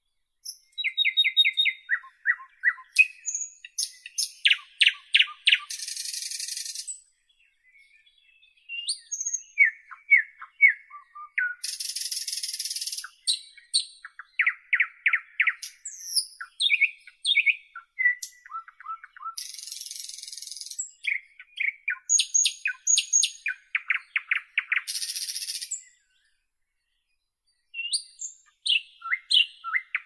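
Nightingale singing: varied phrases with short pauses between them, mixing fast runs of repeated notes, short whistles and harsh buzzy notes about a second long.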